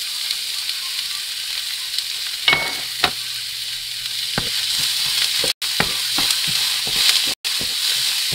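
Carrots, garlic and freshly added onions sizzling in hot oil in a pan, with a spoon knocking and scraping against the pan now and then as they are stirred. The sound drops out for an instant twice.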